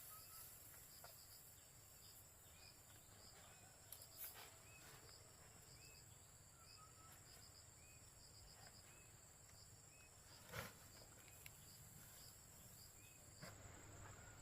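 Faint outdoor ambience: a steady high-pitched insect drone, with small chirps repeating about once a second and two soft knocks, one about four seconds in and one near ten seconds.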